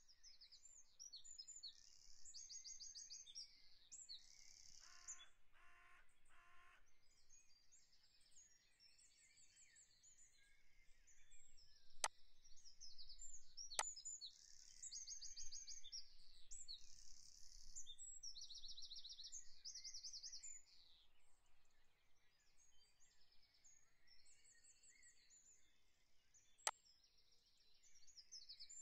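Faint birdsong: small birds chirping and trilling high in pitch, over and over. Three sharp clicks cut through, two close together near the middle and one near the end.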